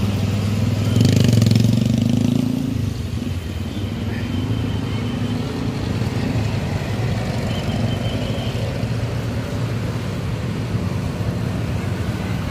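Bus engine running low and steady as the bus pulls slowly out of a parking lot, swelling louder for a moment about a second in.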